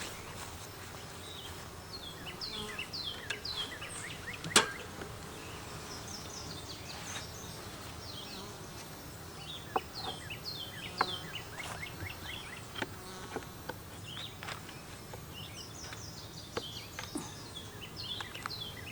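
Honey bees buzzing at the hive entrance, a steady low hum from many bees in flight. Runs of short high chirps come and go over it, and there is a sharp tap about four and a half seconds in, with fainter taps later.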